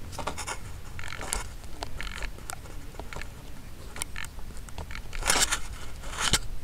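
Handling noise picked up by a model airplane's onboard camera as the plane is carried by hand: irregular scraping, crackling and clicking, with louder rustling bursts about five seconds in and again near the end.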